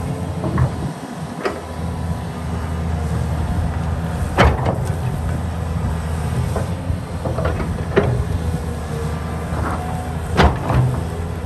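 Heavy construction machine's engine running steadily at a low pitch, with sharp metallic clanks every few seconds, the loudest two about four and ten seconds in.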